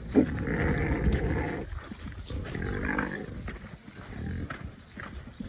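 Several pigs grunting, loudest over the first second and a half, with another loud spell about three seconds in.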